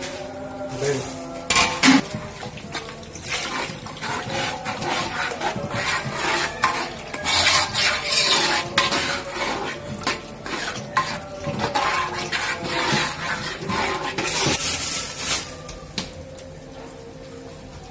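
Metal spoon stirring a thick curry in a metal cooking pot, with irregular clinks and scrapes against the pot's sides and bottom; the stirring stops about two seconds before the end.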